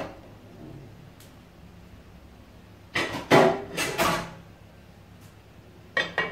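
A metal spoon clattering and knocking against a pot several times, about three seconds in. Near the end the pot's lid is set on with two sharp clacks.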